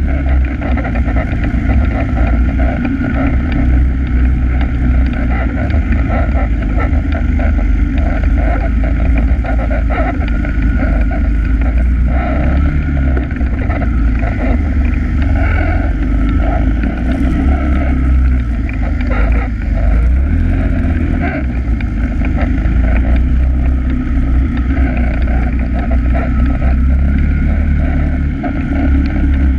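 ATV engine running steadily as the quad rides along a dirt trail, heard close up from a camera mounted on the machine, with a deep, constant drone.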